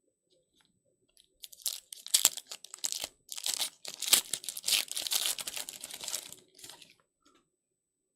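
A foil trading-card pack wrapper being torn open and crinkled by hand, a dense crackling rustle lasting about six seconds with a few sharper rips.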